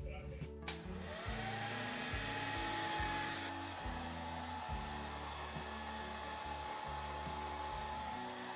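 A small electric blower motor switches on, its whine rising and then holding steady over a rush of air; the higher hiss eases a few seconds in. Background music with low bass notes plays underneath.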